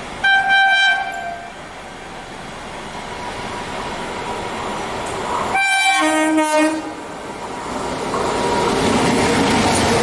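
WAP7 electric locomotive horn: a short blast just after the start and a longer chord of several tones about six seconds in. Between and after them the noise of the approaching train grows steadily louder toward the end as the locomotive runs past close by.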